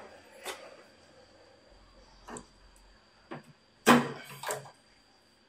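A few scattered clicks and knocks from hands pulling wiring connectors and cables loose on an old CRT television's main board. The loudest knock comes about four seconds in, and a faint steady high whine sits underneath.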